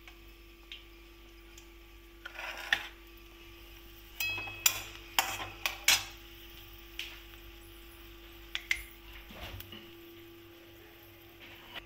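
Steel spoons clinking and scraping against metal cookware. There are scattered sharp clinks, some with a short metallic ring, and most of them fall about four to six seconds in.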